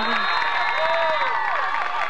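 Football crowd cheering and yelling, many voices at once. A referee's whistle gives one long, steady high blast that stops about a second and a half in, ending the play.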